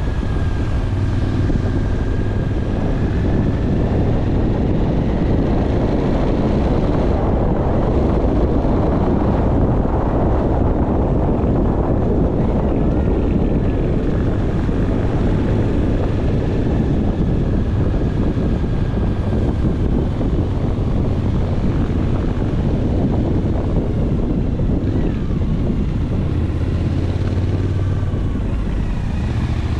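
A vehicle's engine running steadily under heavy wind noise on the microphone, with a constant low hum.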